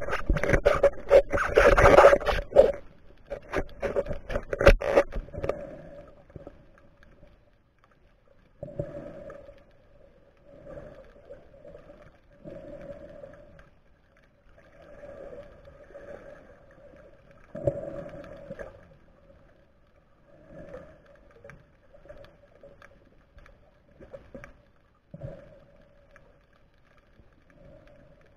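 Underwater camera audio: loud scraping and knocking against the camera housing for the first five seconds, then muffled water swishes every one to two seconds over a faint steady hum.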